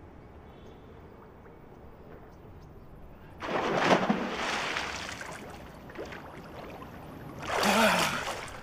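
A man jumps feet-first into a swimming pool: a sudden loud splash about three and a half seconds in, dying away into water sloshing over the next couple of seconds. Near the end he surfaces with a second splash and a short shout.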